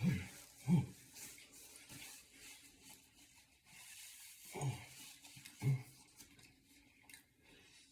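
A man's short low grunts, four of them, with breathing and faint mouth noises between, as he reacts to the burn of Reaper-pepper hot chicken.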